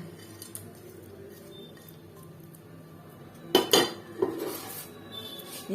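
Metal utensil clinking against a cooking pot: a few light taps, then a loud clatter about three and a half seconds in and more clinking just after.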